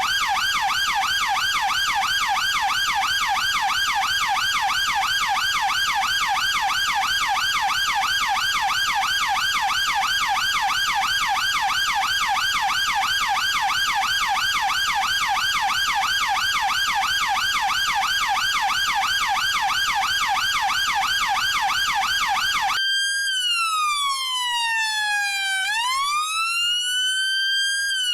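UK police car siren sounding a fast yelp, a rapid up-and-down warble. About five seconds before the end it switches abruptly to a slow wail that falls, rises and falls again.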